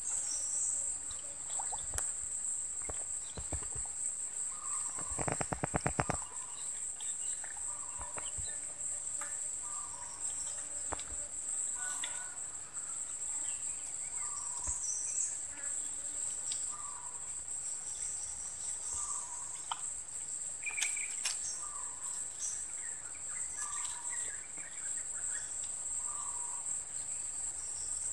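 Steady high-pitched insect drone, with a short chirp repeating every second or two and a brief rapid run of clicks about five seconds in.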